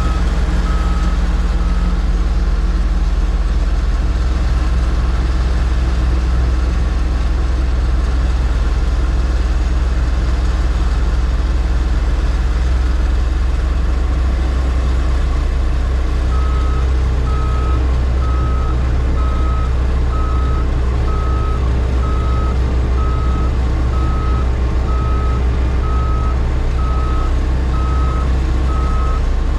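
Diesel engine of heavy earthmoving equipment running steadily, with a backup alarm beeping evenly at the start, stopping about a second in, and starting again about halfway through as the machine reverses.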